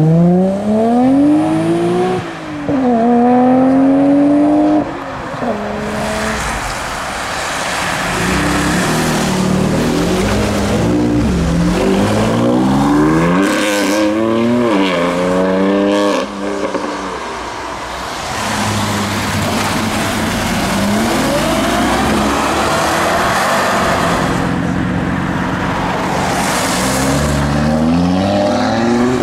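Performance cars accelerating hard away one after another, engines revving up through the gears in repeated rising sweeps. The tyres hiss on the wet road.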